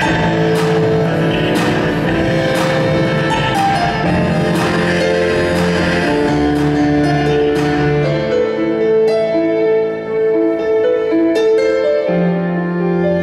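Live instrumental music: a keyboard and a violin playing held, sustained notes, with a sharp regular hit about once a second that drops out about two-thirds of the way through.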